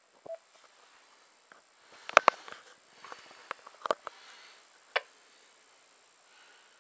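Handling noise: scattered sharp clicks and knocks, the loudest a close pair about two seconds in and the last about five seconds in. Under them is a faint steady hiss with a thin high whine.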